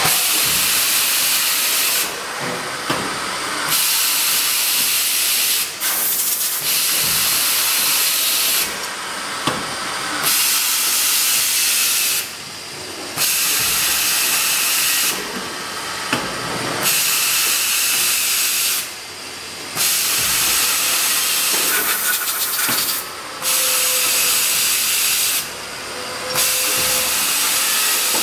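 Multi-station automatic tapping machine with rotary table running: a loud steady hiss that drops away for a second or so every few seconds as the machine cycles, with a few sharp clicks from the mechanism.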